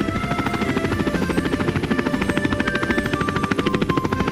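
Quadcopter sound effect: rotors running with a fast, even chop, under soft background music with a few held notes.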